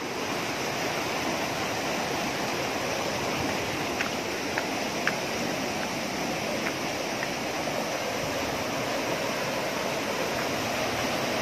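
Rocky mountain stream rushing over stones, a steady wash of water noise, with a few faint short ticks midway through.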